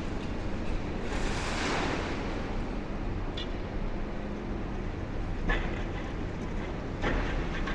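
A high-reach demolition excavator's diesel engine running steadily. About a second in, a rush of falling concrete debris swells and fades over a second or so, and a few sharp knocks follow later.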